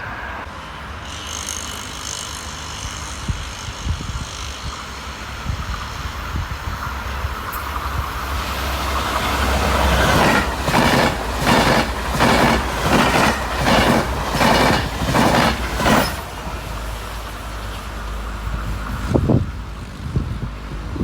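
A train passing: its rumble builds, then the wheels clack over rail joints in an even run of about one and a half beats a second for some six seconds before it falls away.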